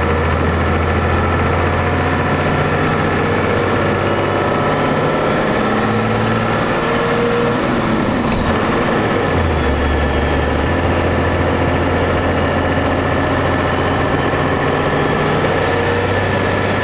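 Diesel pickup with compound turbochargers running under load, heard from inside the cab. A high turbo whistle rises, then drops as the five-speed manual is shifted about eight seconds in, with a click at the shift, and the engine note changes. Near the end the whistle climbs again.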